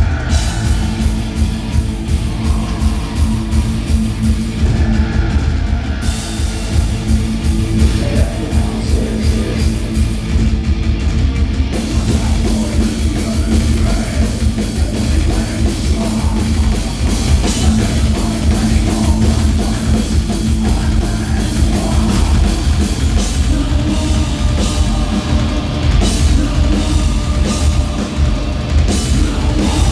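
Industrial metal band playing live and loud: a fast, steady drum-kit beat under distorted guitar and keyboards.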